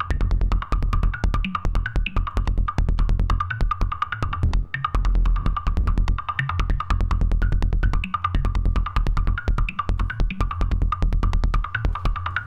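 Make Noise Shared System Eurorack modular synthesizer playing a patched drum-and-bass style electronic beat: a heavy low bass and kick under fast, dense clicky percussive hits, with a recurring mid-high synth tone. The bass briefly drops out a few times.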